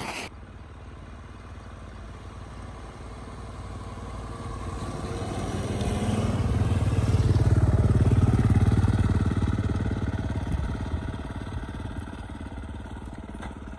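Ford pickup truck's engine running as it drives through deep snow, growing louder as it passes close by about halfway through, then fading as it pulls away.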